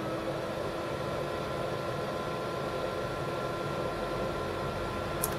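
Commodore Amiga 4000 running just after power-on: a steady fan hum with a faint whine whose pitch has just risen and settled as it came up to speed. Two short sharp clicks near the end.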